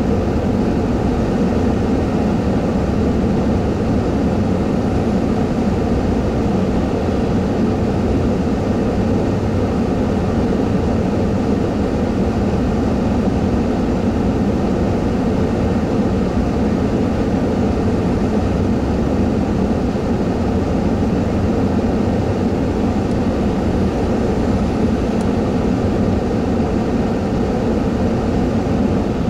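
Steady rumble of a vehicle's engine idling, heard from inside its cab, with no change in level throughout.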